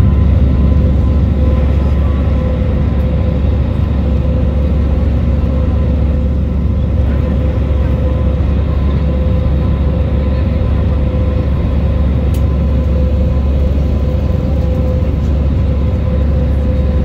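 Jet airliner cabin noise in flight, heard beside the engine: a loud, steady rumble of the turbofans and rushing air with a constant hum running through it.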